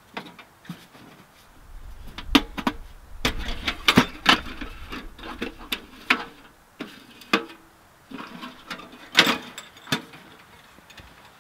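Portable sheet-metal tent wood stove being handled and unpacked: irregular metal clanks, knocks and rattles as its parts are opened, slid out and set in place, with the loudest knocks a few seconds in and again about nine seconds in.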